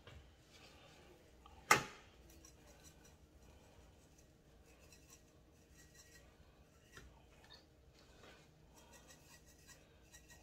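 Faint rustling and small clicks of a metal spice shaker being shaken over a raw chicken as the bird is turned on a wire rack, with one sharp knock a little under two seconds in.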